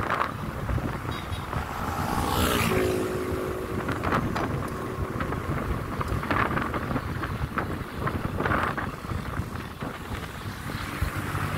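A vehicle on the move, with wind buffeting the microphone; a short pitched sound drops in pitch about two seconds in.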